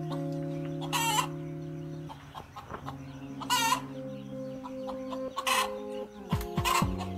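A hen giving short, loud squawking calls about four times, over background music of long held notes.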